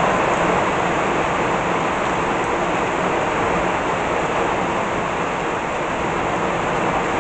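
Very heavy tropical rain pouring steadily, a continuous even hiss of rain falling on the garden and on the porch roof overhead, with water running off the roof. It is as hard as it rains there.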